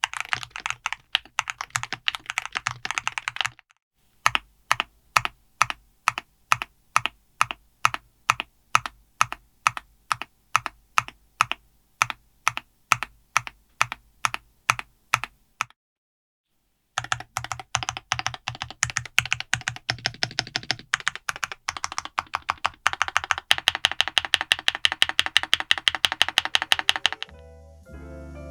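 Typing on an FL-ESPORTS GEO75 HE gasket-mount Hall Effect keyboard with TTC Magneto magnetic switches. It opens with a few seconds of fast typing, then about twelve seconds of single keystrokes at an even two a second, a short pause, and fast typing again. Music begins just before the end.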